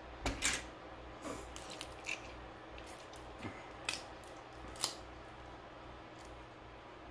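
Cooked crab shell being cracked and snapped apart by hand: a run of sharp, crisp cracks over the first five seconds, the loudest a little before five seconds in.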